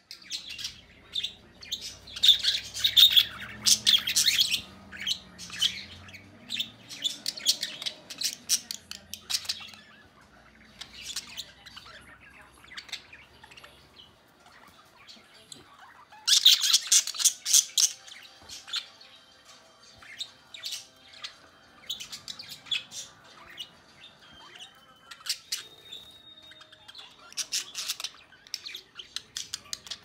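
Pet budgerigars chirping and chattering in short, high calls, with louder spells of fast warbling chatter a couple of seconds in and again about halfway through.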